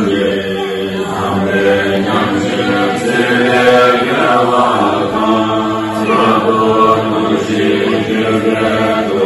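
Tibetan Buddhist monks and lay congregation chanting a liturgy together in unison, many voices holding a steady recitation tone.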